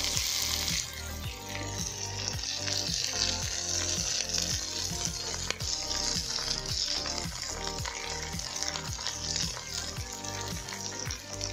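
Chopped broad beans sizzling and frying as they are dropped into the hot clay pot, the sizzle brightest in the first second and then running on steadily. Background music with a repeating beat plays along.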